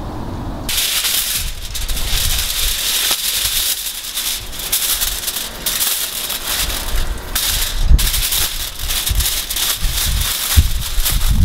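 Aluminium foil crinkling and rustling in close-up as it is unfolded by hand and wrapped around raw sweet potatoes, a dense run of crackles starting just after the beginning.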